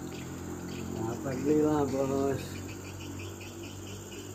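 Insects chirping steadily in a quick pulsing rhythm, about four pulses a second, over a steady low hum. A person's voice is heard briefly in the middle, the loudest sound here.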